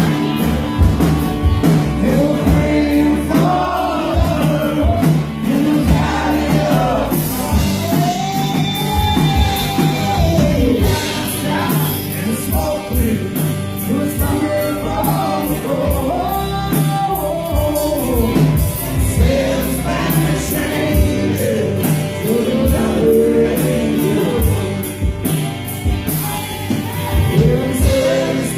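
Recorded music with a singing voice over a steady bass beat.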